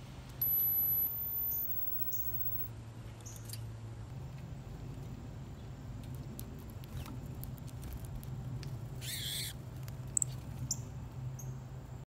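Outdoor ambience at a bird feeder: a steady low hum throughout, a few short high chirps from birds, and a brief rustle about nine seconds in. Two very high steady tones sound in the first two seconds and are the loudest thing heard.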